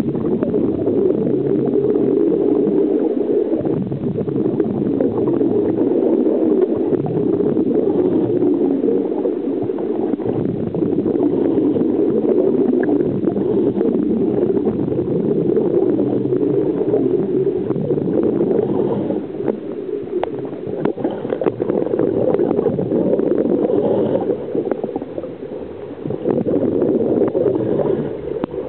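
Scuba divers' exhaled bubbles gurgling and rushing, heard underwater through the camera's housing as a loud, muffled, steady bubbling that eases off briefly a few times.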